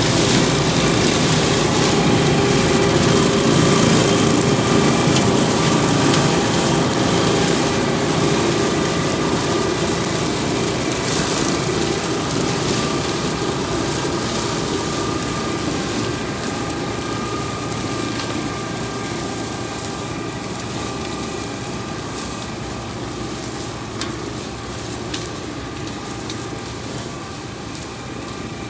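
Motor of a cutting machine running steadily with an even hum, growing gradually quieter over the stretch.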